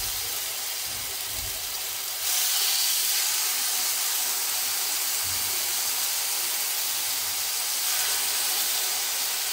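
Marinated chicken breast steaks sizzling in hot oil on a ribbed grill pan as pieces are laid on: a steady hiss that steps up in loudness about two seconds in.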